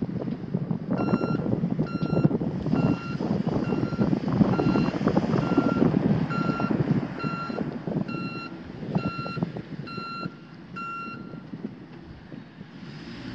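Backup alarm of a 2009 Ford F450 Super Duty truck beeping steadily as the truck reverses, about three short high beeps every two seconds, stopping near the end. A steady low rumble runs beneath.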